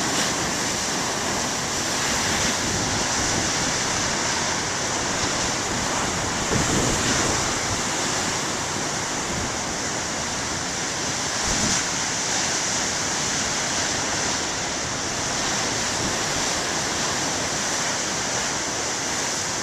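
Ocean surf breaking on a beach: a steady wash of crashing waves, swelling slightly now and then, without wind on the microphone.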